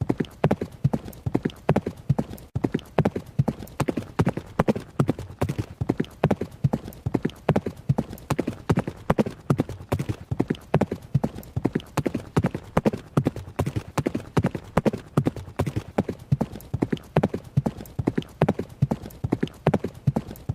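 Horse hooves running: a quick, steady rhythm of sharp hoofbeats, about four a second, keeping on without a break.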